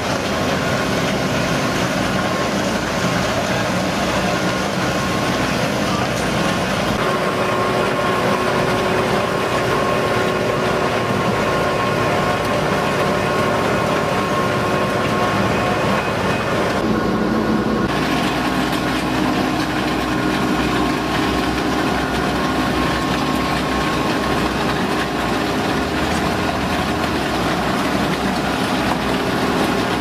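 Truck-mounted road-surfacing machine running steadily as it lays asphalt: a continuous engine rumble with a steady whine from its machinery on top.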